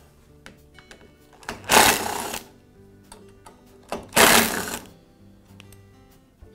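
Cordless Makita drill-driver running in two short bursts, about two seconds apart, backing out the screws of the metal bracket that holds the drive control to the mower handle.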